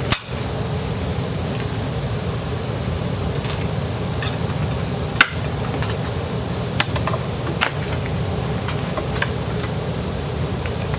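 Steady low background hum with scattered light clicks and taps from handling sewing machine foot pedal controllers and their cords; the sharpest clicks come just after the start and about five seconds in.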